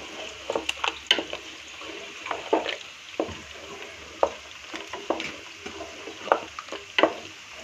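A spatula scraping and knocking irregularly against a metal pot as mutton korma masala is stir-fried (bhuna), over a steady sizzle of the meat frying in oil and ghee.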